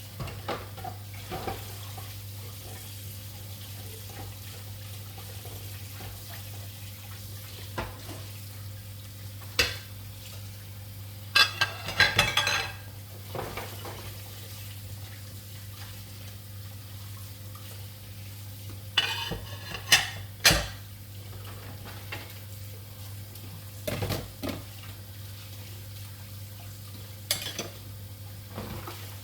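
Kitchenware being handled: utensils and pots clinking and knocking in scattered bursts, with a steady low hum underneath.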